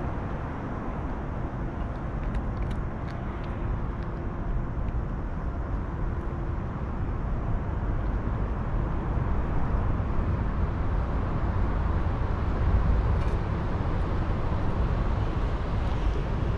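Steady low rumble of road traffic from an elevated highway, growing a little louder in the second half, with a few faint clicks in the first few seconds.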